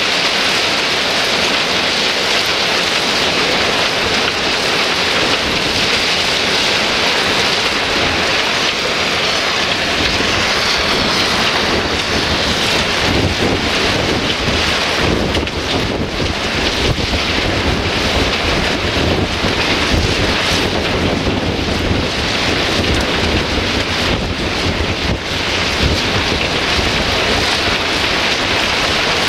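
Crushed stone pouring from a loading chute into an open steel freight wagon, a steady loud rushing hiss of falling gravel. A deeper rumble joins it about halfway through.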